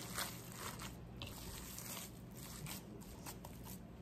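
Gloved hands kneading raw ground beef meatloaf mixture in a bowl: faint, irregular squishing.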